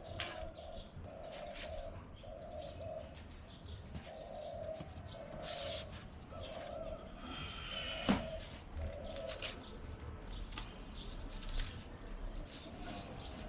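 A bird calling in a run of short, low, even notes repeated about once a second, over scattered clicks and knocks, with one sharp knock about eight seconds in.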